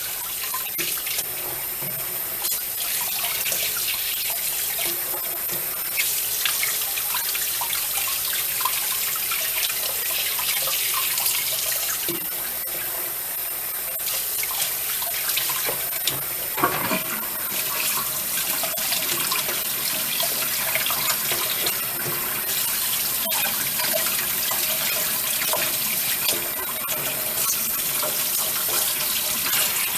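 Kitchen faucet running steadily into a sink while raw chicken wings are rinsed under it, with small splashes and occasional light knocks against the sink.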